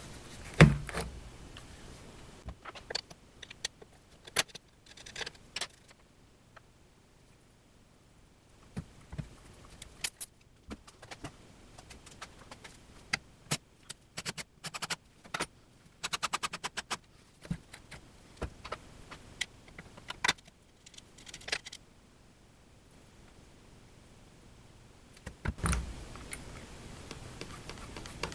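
Scattered clicks, knocks and metallic clinks from handling a cordless drill/driver and brass threaded inserts while driving the inserts into an MDF board. There is a loud knock just under a second in and a quick run of rapid clicks about midway.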